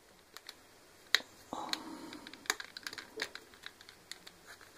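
Irregular sharp plastic clicks and snaps as the latches of an LG G3s phone's plastic midframe are pried open by hand, a couple of louder snaps among lighter ticks, with a short scrape of plastic on plastic in between.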